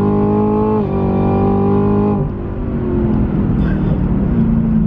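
Chevrolet Camaro ZL1's supercharged 6.2-litre V8 under full throttle through a Corsa Extreme cat-back exhaust. The revs climb, drop with an upshift about a second in and climb again, then fall away about two seconds in to a steady, quieter run.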